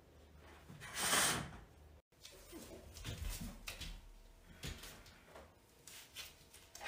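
A sharp rush of noise lasting about half a second, then scattered light knocks, thumps and shuffling of someone moving about a room, against a chair and a table.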